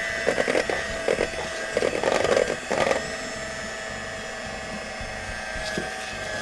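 Electric mixer running steadily as flour mixture is beaten into pizzelle batter, with the beaters clattering against the bowl in quick knocks during the first three seconds.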